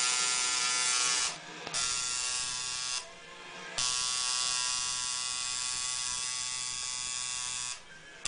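Tattoo machine buzzing steadily as its needle works lettering into the skin of a forearm. It cuts out briefly three times: about a second and a half in, for most of a second around three seconds in, and again near the end.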